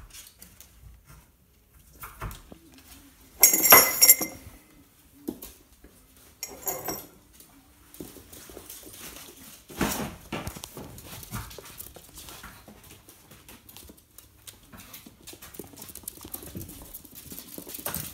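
Ferret scampering on a tile floor, its claws clicking and scrabbling, with a few louder rattling clatters, the loudest about three and a half seconds in.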